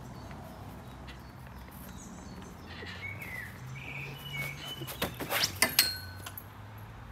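Garden birds chirping a few times over a low steady background hum. About five seconds in there is a quick cluster of knocks and clatter as a dog tumbles off a metal-framed garden swing and jolts it.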